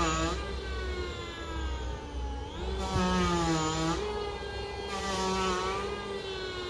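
A machine hums steadily, its pitch slowly sinking, with three short rushing bursts of noise about a second long.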